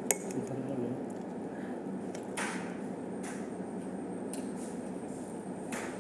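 Busy eatery background: a steady murmur of voices, with a sharp clink just after the start and three short swishes spread through the rest.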